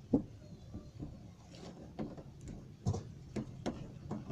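Slime being stirred in a container: a handful of irregular knocks and clicks of the stirrer against the container, the loudest just after the start and about three seconds in.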